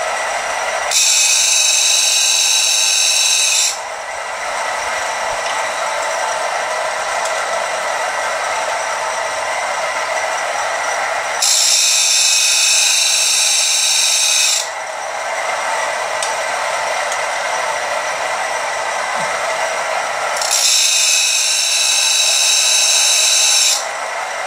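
Electric motor of a homemade belt-driven tool grinder running steadily. Three times, about ten seconds apart, a louder, higher-pitched hiss comes in and lasts about three seconds.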